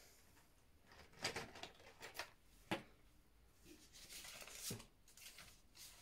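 Faint clicks and clatter of crayons and felt-tip pens being rummaged from a plastic tub, then a brief scratchy scrawl of a pen on paper.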